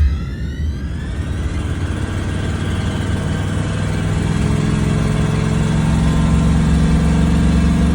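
Motorhome engine idling just after start-up, a steady low drone. Electronic music fades out during the first second.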